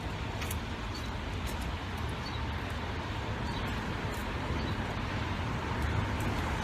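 Steady outdoor background noise with a constant low hum and a few faint ticks.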